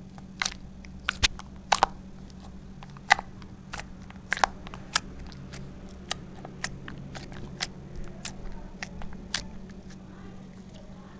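Slime clicking and popping as fingertips press into it and pull away: sharp irregular snaps about a second apart, the loudest about three and four and a half seconds in. The snaps die away near the end as the slime is gathered up and stretched.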